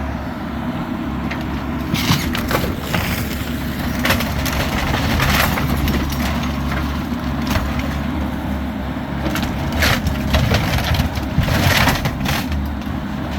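Bobcat E85 compact excavator's diesel engine running steadily while its bucket crushes and splinters the wooden debris of a manufactured home, with repeated sharp cracks and crunches at irregular intervals.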